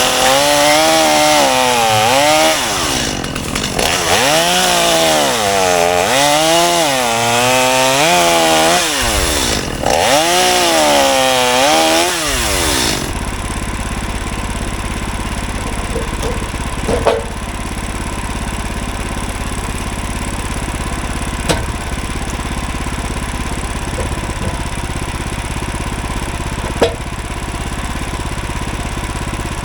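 Gas engine of a Woodland Mills HM126 portable bandsaw mill running, its speed swinging up and down over and over for about the first thirteen seconds. It then settles into a steady run, with three short sharp knocks spaced several seconds apart.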